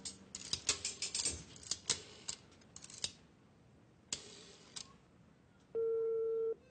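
A run of sharp, irregular clicks and taps, thinning out after about three seconds. Near the end comes one steady telephone tone lasting under a second, a single ringing tone as heard in a phone's earpiece.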